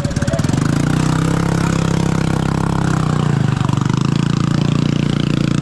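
Small two-wheeler engine running under way, its note dropping about three seconds in, over a steady hiss.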